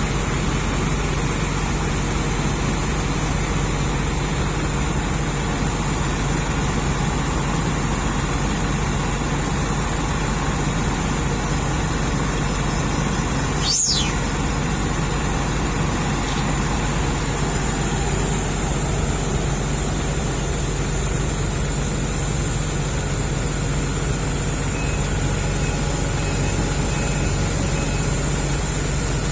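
Heavy diesel engines of a Nissan Diesel dump truck and a Sumitomo crawler excavator running steadily as a low, even drone, with one short click about halfway through.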